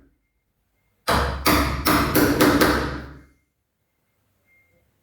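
A 3/4-inch wood chisel struck with about six quick blows, cutting the recess for a lock faceplate into the edge of a plywood door. The blows come about a second in and stop a little past three seconds.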